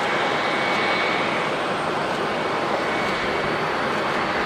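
Steady roar of airliner engines with a faint high whine: an ATR 42-600 turboprop at takeoff power on its takeoff roll and lift-off, with a twin-jet airliner taxiing close by.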